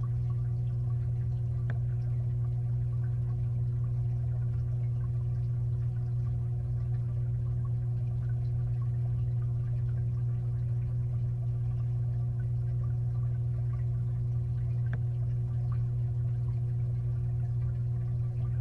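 The aquarium's filter pump motor hums steadily, heard from underwater inside a 55-gallon tank. Faint scattered ticks come through the water.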